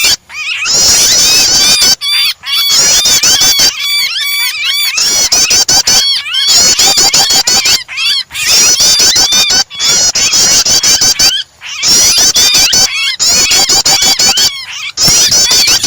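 Bird-lure recording of prenjak (prinia) song mixed with the shrill distress cries of a trapped bird: dense, rapid chirping notes in runs of a second or two, broken by short breaks several times.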